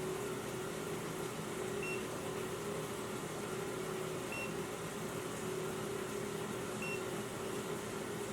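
A carbon monoxide detector beeping: a single short high beep about every two and a half seconds, three times, over a steady hum.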